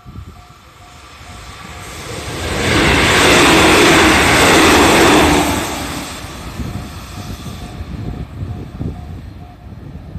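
JR Central 313 series electric multiple unit passing over a level crossing: the rush of the train and its wheels on the rails swells to a loud peak a few seconds in, then fades away. A level-crossing bell rings a steady repeating ding, about two and a half strikes a second. It is drowned out while the train goes by and stops shortly before the end.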